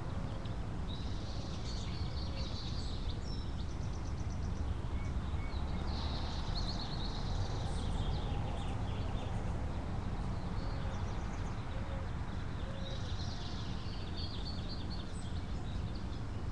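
Backyard songbirds singing in three short spells of rapid high chirps, over a steady low background rumble.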